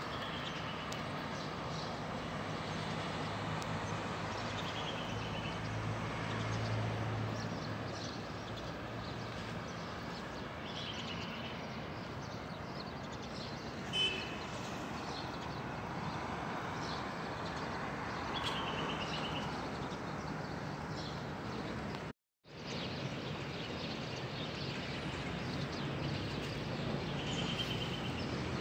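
Town ambience: a steady low hum and background noise of a town, with about six short, high bird chirps scattered through it. The sound drops out for a split second about two-thirds of the way through.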